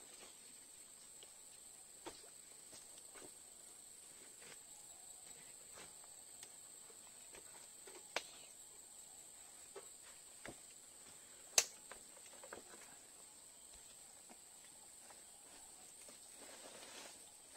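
Faint, steady high-pitched insect chirring at night, with scattered soft clicks and rustles as fish pieces are laid on a wire grill basket; one sharper click a little past halfway.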